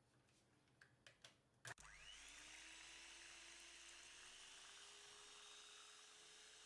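A few light clicks, then an electric hand mixer switches on about two seconds in. Its motor whine rises quickly and then runs steady, creeping slowly higher, as the twin beaters whisk egg whites and sugar.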